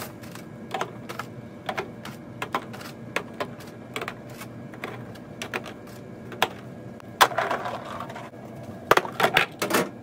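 Irregular light clicks and taps of eggs being handled and set into a plastic egg container, with a louder clatter about seven seconds in and a quick run of knocks near the end.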